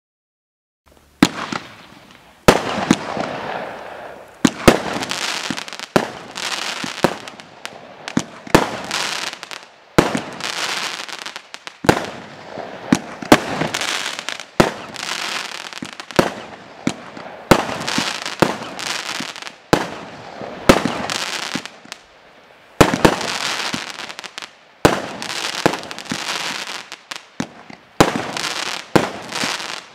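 A 48-shot consumer firework cake firing, starting about a second in: a sharp bang roughly every one to two seconds, each followed by a hiss and crackling as the shot breaks.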